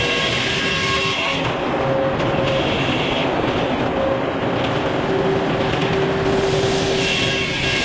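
Sawmill running and cutting: a steady, loud mechanical noise with high whining tones from the blade that come and go and shift in pitch.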